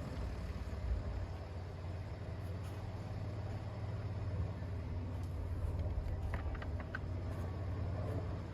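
Steady low vehicle rumble, with a few short high ticks or chirps about six to seven seconds in.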